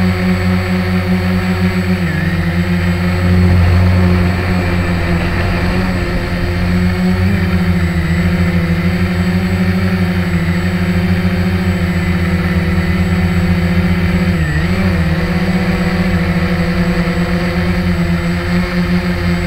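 Walkera QR X350 quadcopter's brushless motors and propellers humming steadily, heard close up from its onboard camera, with three brief dips in pitch.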